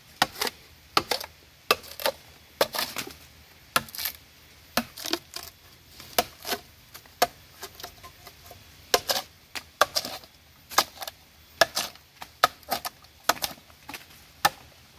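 Machete chopping into a standing bamboo culm: a long run of sharp, uneven knocks of blade on hard bamboo wall, two or three a second, sometimes in quick pairs, with brief pauses.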